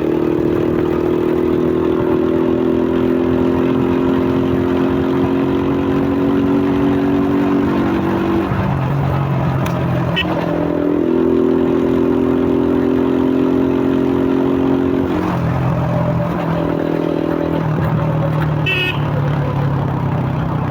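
2001 Suzuki Fiero motorcycle's single-cylinder four-stroke engine, breathing through a K&N pod air filter, running on the move. The engine note holds steady for several seconds at a time, drops about eight seconds in and again near fifteen seconds, and picks back up in between.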